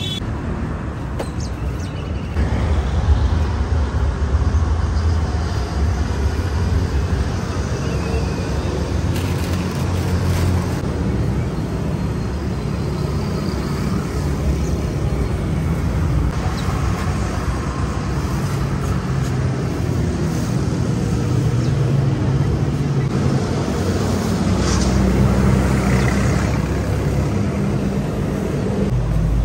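Street traffic: a steady rumble of vehicle engines running close by, its low hum shifting as vehicles come and go.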